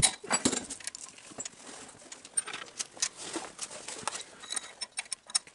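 Scattered light clicks and taps of metal push rods being slid into a small single-cylinder OHV engine and seated on the valve tappets.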